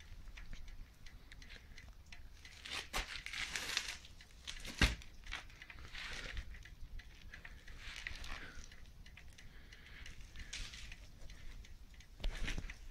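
Quiet rustling and handling noise with scattered clicks, and one sharper knock about five seconds in; no engine running.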